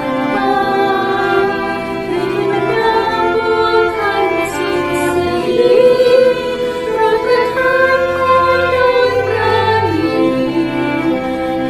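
Singers, women's voices among them, performing a song with violins, cello and keyboard, the parts recorded separately at home and mixed together into one ensemble.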